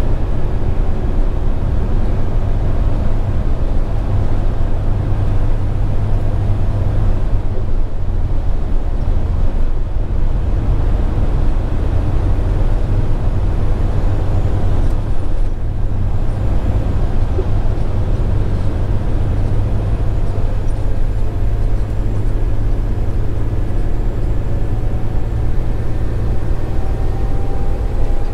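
Scania R410 truck's 13-litre inline-six diesel running steadily under way, a deep, even drone with road noise over it.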